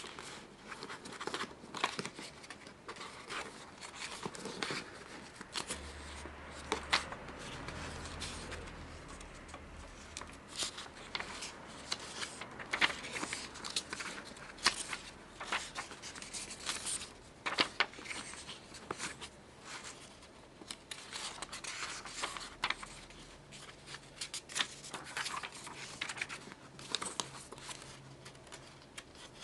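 Stiff printed paper from an origami craft book rustling and crinkling as it is handled, unfolded and creased by hand, with frequent short crackles throughout.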